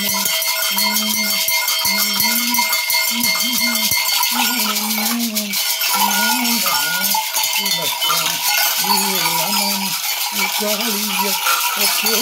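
Two gourd rattles hung with bunches of brass bells shaken without a break: a dense rattle and jingle with several bells ringing through it. Under it a low voice chants in short, drawn-out, wavering phrases.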